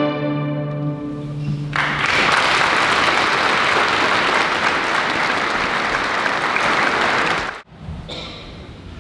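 A string ensemble's last held chord dies away. Then a church audience applauds for several seconds, and the applause cuts off abruptly near the end.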